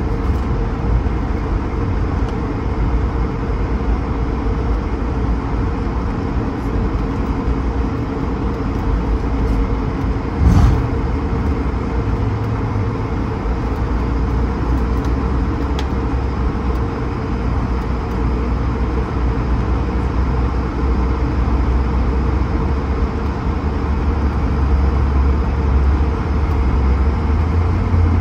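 Airbus A220-300 cabin noise: a steady low rumble with a faint hum, one brief thump about ten seconds in, and the rumble growing a little louder near the end.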